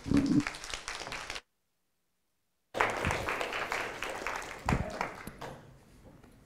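Congregation applauding. The sound cuts out completely for over a second partway through, resumes, and fades away, with a couple of dull thumps near the end.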